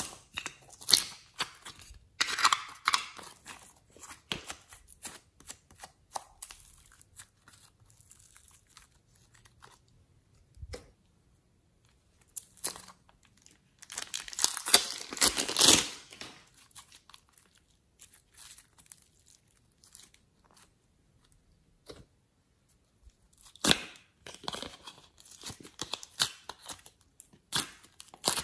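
Thin plastic moulds, a plastic piping bag and a clear cup crinkling and crackling as soft modelling clay is peeled and squeezed out of them. The sound comes in bursts with quiet pauses between; the longest and loudest burst is about halfway through.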